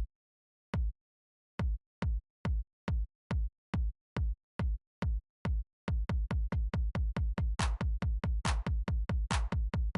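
Electronic intro music: a drum-machine kick drum beat that speeds up, doubling its pace about two seconds in and again about six seconds in, with a few hissy hits joining near the end.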